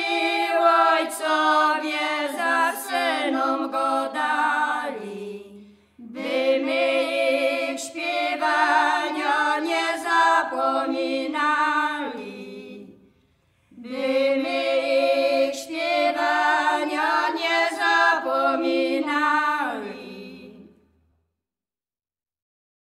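Three women singing a Zagórzanie highland folk song in Polish without accompaniment, in three phrases with short breaths between them. Each phrase ends with the voices sliding down in pitch. The singing stops shortly before the end.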